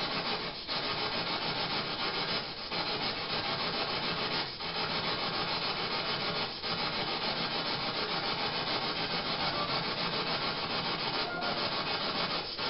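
Steady static hiss with a fast, regular pulsing, broken by brief dips about every two seconds.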